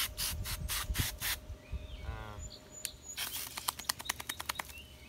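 Hands scrubbing a wet dog's shampooed coat during a bath: a run of quick, even rubbing strokes, then a faster burst of strokes about three seconds in. A brief voice sounds about two seconds in.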